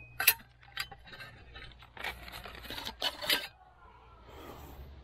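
Several sharp clicks and clinks of hard objects being handled and set in place, the loudest just after the start and another pair about three seconds in.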